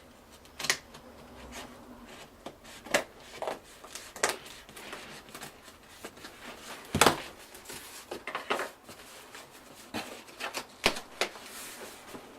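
Cardboard shipping box being cut open and handled: irregular sharp clicks and knocks with short scraping and rustling in between, the loudest knock about seven seconds in.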